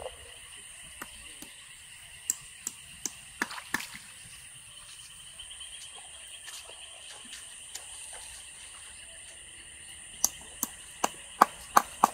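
Steady chorus of insects, shrilling on two constant high notes, with scattered sharp clicks over it: a few about two to four seconds in and a quicker, louder run near the end.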